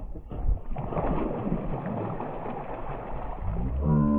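A hooked tongkol (mackerel tuna) thrashing and splashing at the boat side as it is gaffed and lifted from the water. Near the end, a drawn-out, held vocal call.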